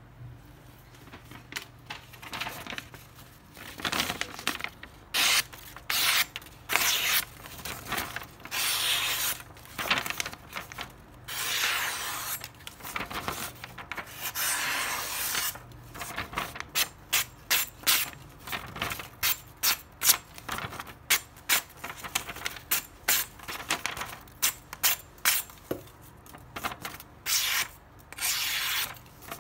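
Damascus-steel Santoku chef's knife slicing freehand through sheets of paper, a paper-slicing sharpness test: a run of short slicing swishes with paper rustling, a few longer strokes in the first half, then quicker, closely spaced cuts.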